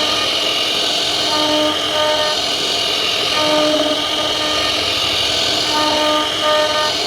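CNC router carving a wooden door panel: steady spindle and cutting noise, with a pitched hum that starts and stops every half second or so as the machine moves.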